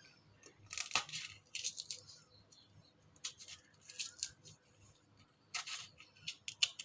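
Green chillies being handled and dropped into a mixer grinder jar: a scattered series of about six short, light clicks and rustles.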